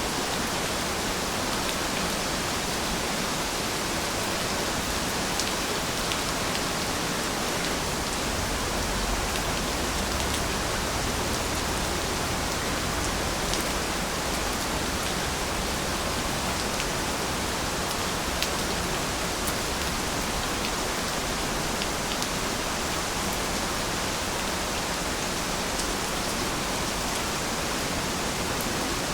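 Steady rain falling: an even hiss with scattered sharper ticks of single drops landing.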